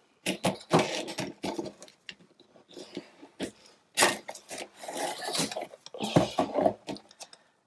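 Hands handling cardboard and kraft paper tape on a cutting mat: irregular taps, rustles and rubbing, with a loud rub about four seconds in as the tape is pressed down with a bone folder, then the taped boards lifted and flexed near the end.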